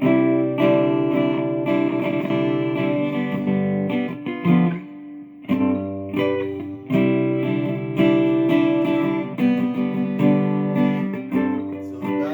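Acoustic guitar strummed through a PA, chords ringing one after another, with a short break about four and a half seconds in.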